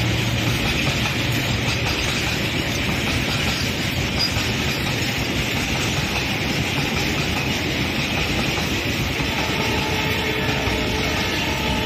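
Fully loaded double-stack container wagons of a freight train rolling past: a steady noise of steel wheels running on the rails. A faint steady whine comes in near the end.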